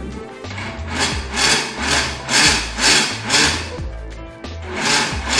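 Countertop blender running, chopping a chunky tomato and mushroom pizza sauce, under background music with a steady beat.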